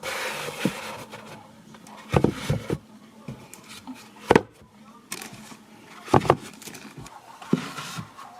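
A handful of sharp knocks and clunks, with a rushing hiss at the start.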